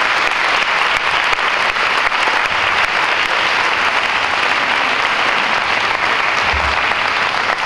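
An audience applauding: a steady round of clapping from a crowd that holds evenly without letting up.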